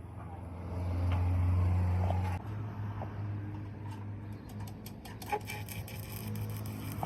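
Workshop machine giving a steady electrical hum, louder for the first two or so seconds and then dropping to a lower level, with light crackling and scattered clicks in the second half.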